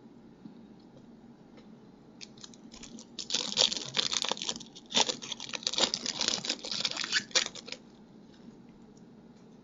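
Trading-card pack wrapper crinkling and tearing as it is ripped open: a few light clicks, then about four and a half seconds of dense crackling that stops near the end.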